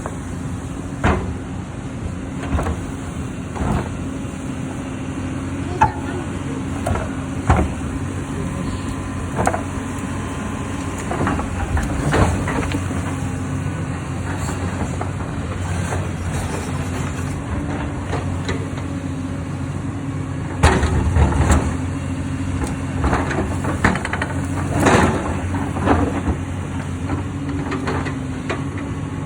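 Hyundai excavator's diesel engine running steadily under load, with repeated sharp knocks and clatter from the machine working stone, loudest in a cluster about two thirds of the way through.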